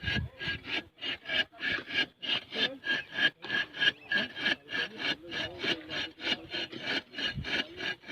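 Rapid, even rasping strokes of a hand tool worked back and forth, about four strokes a second, with a faint metallic ring in each stroke.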